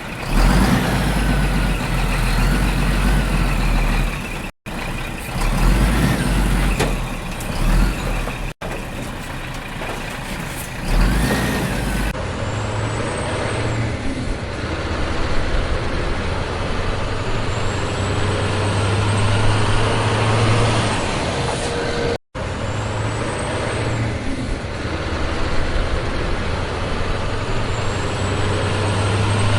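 Truck engine sound running steadily, in several edited segments with abrupt cuts between them.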